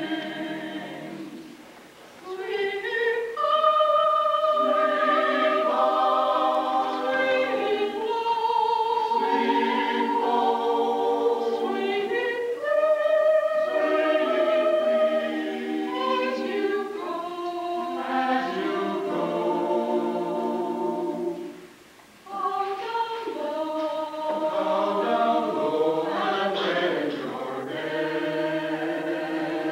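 A small mixed choir of men's and women's voices singing together in parts, holding long notes, with short pauses for breath about two seconds in and again about twenty-two seconds in.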